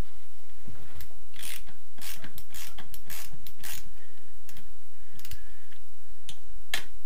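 Half-inch drive ratchet clicking as it is swung back and forth on a socket to unscrew a crankcase bolt. The clicks come in quick runs, then a few single clicks near the end.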